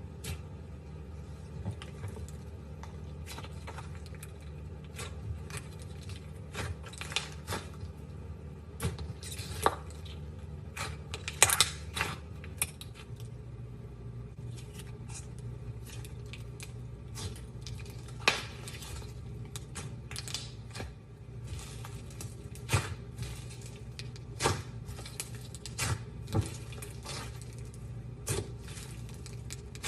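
Slime being squeezed, pressed and poked by hand, giving irregular sharp wet clicks and pops over a steady low hum.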